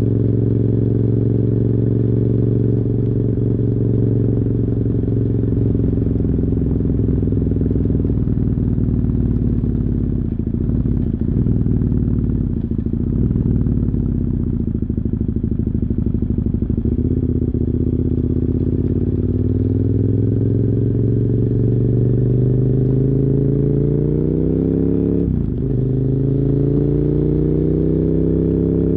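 2007 KTM 990 Super Duke R's V-twin engine with dual Yoshimura carbon exhausts, heard on the move from a phone in the rider's backpack, which muffles it. The engine holds a steady note, wavers through the middle, then rises in pitch under acceleration. The revs drop sharply at an upshift near the end and climb again.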